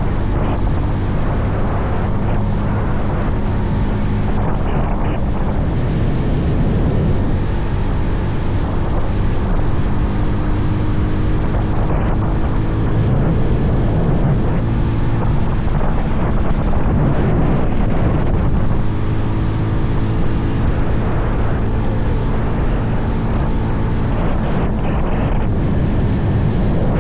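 Bajaj Pulsar 220F's single-cylinder engine running at a steady cruising speed on the move, with wind rushing over the microphone.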